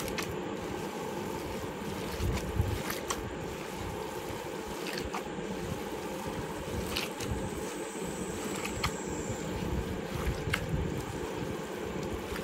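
Hands kneading raw beef mince with gram flour and spices in a steel pot: a steady wet squishing with a few sharp clicks.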